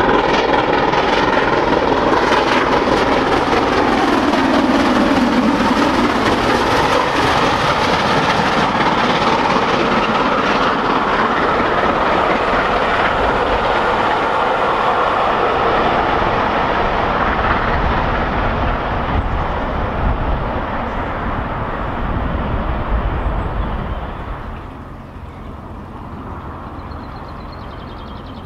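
British steam-hauled train passing at speed, loud and continuous. A tone falls in pitch over the first few seconds as the locomotive goes by, the carriages keep running past, and the sound fades away over the last few seconds.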